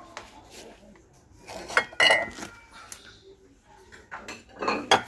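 Ceramic tableware clinking and knocking as it is handled on a shelf: two sharp clinks about two seconds in, the second with a short ring, and a few more knocks near the end.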